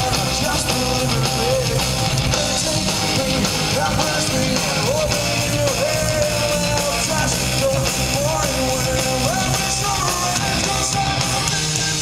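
Rock band playing live and loud: electric guitar, bass and drums, with a melody line that slides and bends in pitch over the top.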